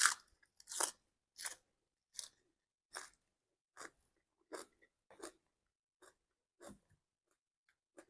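Close-up chewing of crunchy raw vegetables, a bite of Asiatic pennywort leaves with papaya salad. There is a steady run of crisp crunches, about one every 0.7 seconds, loudest at the first bite and growing fainter.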